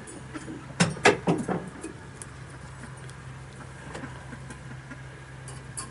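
A quick run of four or five knocks and clatters about a second in, from hands working inside a wooden smokehouse while unloading it, over a steady low hum.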